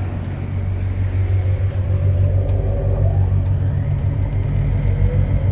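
Mitsubishi Crystal Mover C810 rubber-tyred light rail car pulling away. It makes a steady low rumble, and its motor whine rises in pitch as it gathers speed, climbing again near the end.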